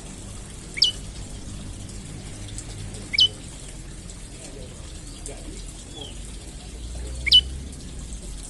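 Prenjak lumut calling: three loud, sharp, very short notes, each sweeping down steeply in pitch, spaced a few seconds apart, with a fainter curved note between the last two.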